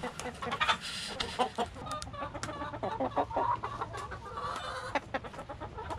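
A flock of hens clucking in short calls, over many quick clicks.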